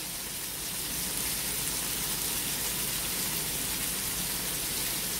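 Chicken breasts and lemon slices sizzling steadily on a George Foreman electric contact grill.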